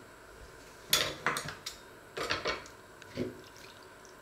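Metal spoons and a knife clinking as they are moved and set down on a wooden board, with light knocks of kitchen things put down on a wooden table. The clatters come in short groups: about a second in, a cluster a little after two seconds, and one more past three seconds.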